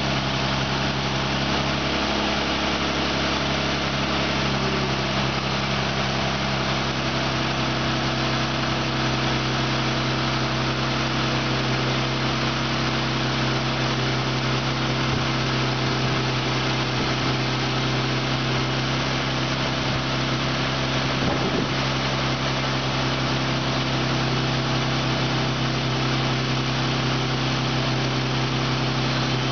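2002 Isuzu Rodeo's V6 engine idling steadily with the hood open, being test-run as a used engine; it runs evenly and tested good.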